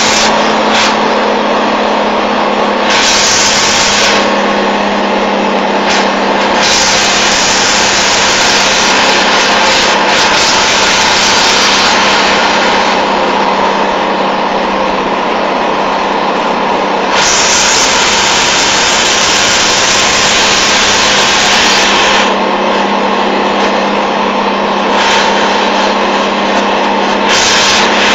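Mercedes-Benz 911 timber truck's diesel engine running steadily under way, a constant drone with a hiss that swells and drops every few seconds.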